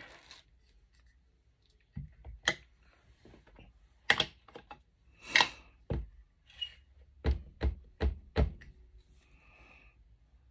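Craft tools and supplies being handled and set down on a table: scattered sharp taps and knocks, with a quick run of four near the end.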